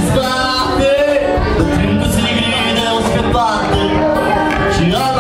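Live band music: a male voice singing into a microphone and PA over acoustic guitar accompaniment.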